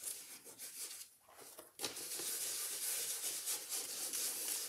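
A fabric scrim pad rubbing ink into the peeled mount-board surface of a collagraph plate: faint and broken at first, then continuous from about two seconds in.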